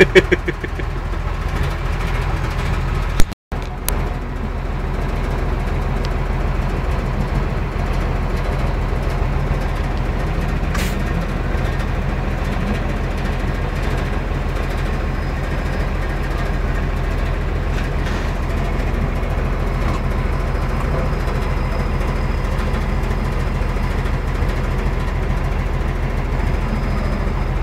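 Engine of a 6x6 military truck running steadily at an even speed, heard close from the truck itself. The sound drops out for a moment about three and a half seconds in.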